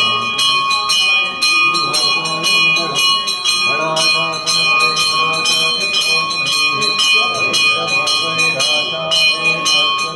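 Brass temple bell rung quickly and continuously, several strikes a second, during worship in the shrine, with voices underneath.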